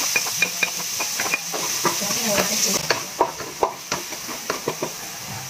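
Chopped garlic and freshly added onion sizzling in hot oil in a metal frying pan while a wooden spatula stirs, knocking and scraping against the pan. The sizzle is strongest in the first half and fades after about three seconds, while the spatula knocks keep on.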